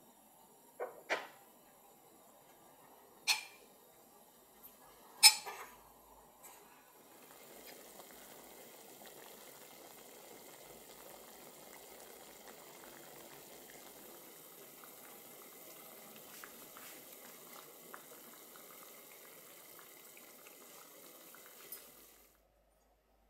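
A few sharp clinks of a metal ladle against a ceramic pot, then soy-sauce marinade simmering in the pot, a steady bubbling that stops suddenly near the end.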